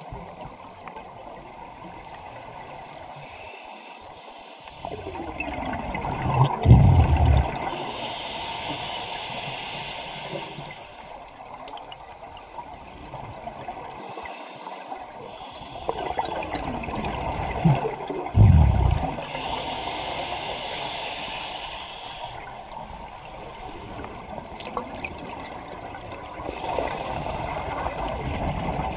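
Scuba regulator breathing underwater: a slow cycle of hissing inhaled air and rumbling bursts of exhaled bubbles, about one breath every ten seconds, with the two loudest exhales about a third and two-thirds of the way through.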